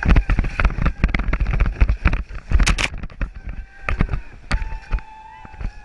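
Plastic whitewater kayak sliding down a dirt and grass trail, its hull scraping and knocking over the ground in a rapid run of bumps and thuds that thins out over the last couple of seconds.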